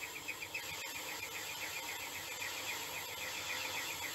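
Metal lathe parting off a cast-iron cylinder cover, the parting tool cutting with a high-pitched, rapidly repeating chirp over the hum of the running machine.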